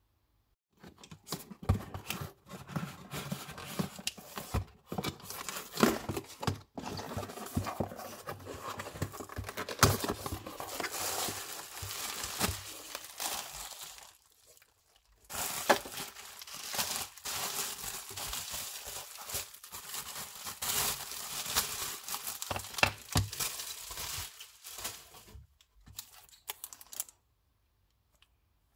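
Packaging being torn open and crinkled by hand: scratchy rustling with many small clicks, pausing briefly about halfway through and stopping shortly before the end.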